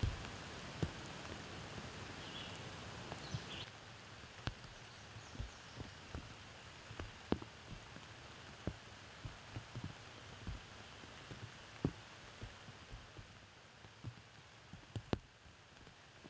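Rain falling, a steady patter with heavy drops landing one by one as sharp, irregular taps. The steady patter gets quieter about four seconds in.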